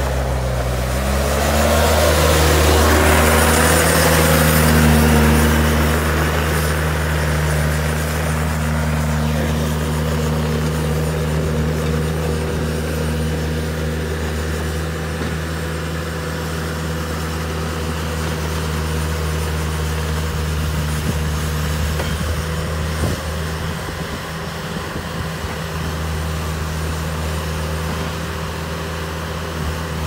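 Bobcat T300 compact track loader's diesel engine running hard as the machine drives and works dirt with its bucket. The engine pitch rises in the first couple of seconds, then holds steady.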